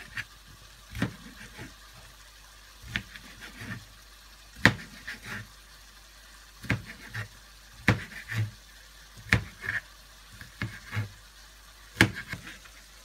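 Kitchen knife cutting through maitake mushroom and knocking on a cutting board: short, sharp knocks at an uneven pace, about one or two a second.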